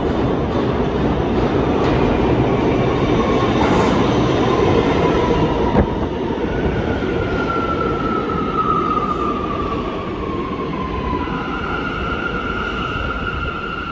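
R179 subway train running on the tracks with a steady rumble. In the second half a high tone slides down in pitch, then holds steady near the end.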